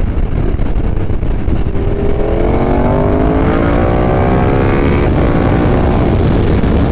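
KTM 1290 Super Duke R's V-twin engine accelerating hard, its pitch climbing steadily for about three seconds, then breaking off about five seconds in, as at an upshift, and pulling on at a steadier pitch. Heavy wind rumble on the helmet microphone runs underneath.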